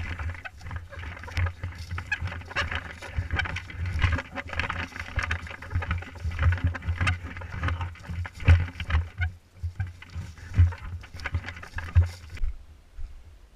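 Irregular thumps, knocks and rustling of a player moving on foot right at the microphone of an action camera. The sound dulls suddenly near the end.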